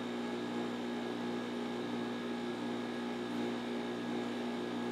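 Steady hum of electrical or mechanical room equipment: a constant low drone with an even hiss, unchanging throughout.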